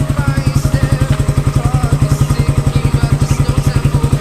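Suzuki Raider 150's single-cylinder four-stroke engine idling steadily as it warms up, with a fast, even exhaust beat through a big elbow pipe with the catalytic canister removed.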